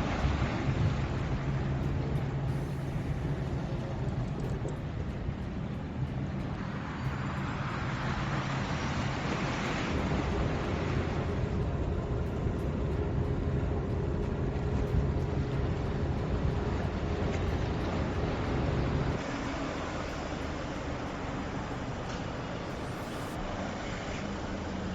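Steady road and tyre noise from a vehicle driving, with a low hum underneath. The noise swells for a few seconds around eight to eleven seconds in and eases slightly after about nineteen seconds.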